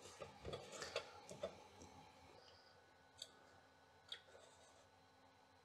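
Faint clicking from a computer mouse button as icons are selected on a Macintosh Classic. A few soft, irregular clicks come in the first second and a half, then two sharp single clicks about a second apart.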